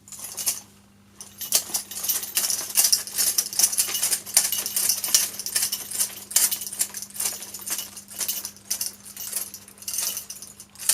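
Metal pieces shaken in uneven bursts of jingling and clinking, performed as Foley for a horse's harness jingling with its gait. A faint steady low hum lies underneath.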